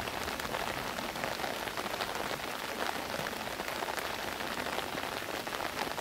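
Heavy rain falling steadily, a dense patter of drops on a surface.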